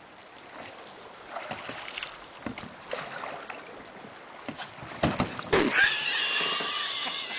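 Oars knocking and clunking in the oarlocks of a metal rowboat as it is rowed hard, with louder knocks about five seconds in. Near the end a high-pitched, wavering voice rises over it.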